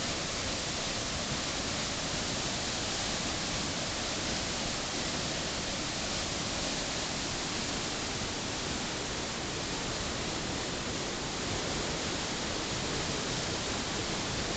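Flooded creek in spate: muddy floodwater rushing and churning over rapids in one steady wash of water noise.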